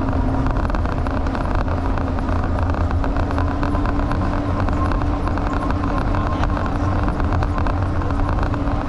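A car driving along a street: steady low engine and tyre rumble with a constant hum.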